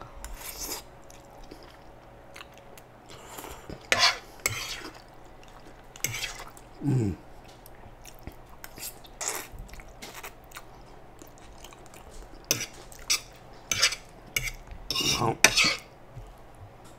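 Close-up eating sounds of spicy instant noodles: slurping and chewing, with a metal fork clicking and scraping on the surface of a nonstick electric griddle. A short falling sound from the mouth comes about seven seconds in, and a longer cluster of slurping and fork noises comes near the end.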